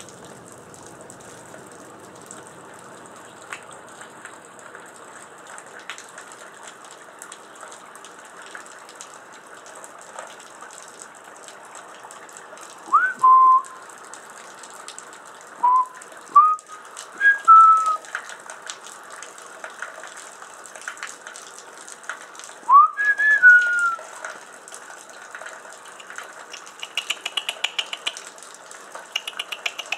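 Steady rain, with a person whistling short notes that rise and fall in pitch: a few in a cluster about halfway through and another short run about three quarters of the way in.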